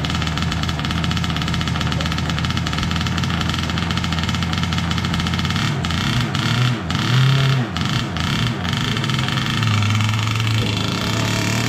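Small chainsaw-type gasoline engine of an RC powerboat running steadily, revved up and down a few times about halfway through, then settling to a steady note near the end.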